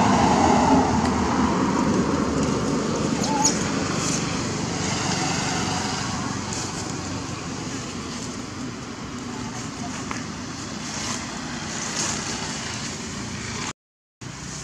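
Steady outdoor background noise with indistinct voices, loudest at the start and easing off. It cuts out abruptly near the end.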